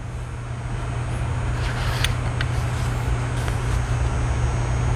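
A steady low machine hum that slowly grows louder, with a few faint metallic clinks about two seconds in as steel combination wrenches are set into a canvas wrench roll.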